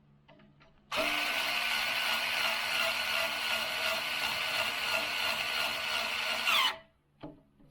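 Power drill driving a long screw into the laser engraver's frame: the motor runs at a steady whine for about six seconds, then winds down with falling pitch as the trigger is released.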